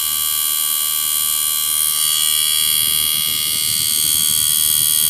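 Steady electrical hum with several constant high-pitched whining tones over loud hiss. A soft low rustle joins about halfway through.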